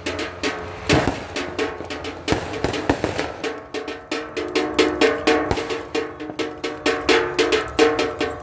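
Rapid percussive banging, several strikes a second, with a ringing metallic clang like a cowbell or struck metal over drum-like hits: New Year noisemaking.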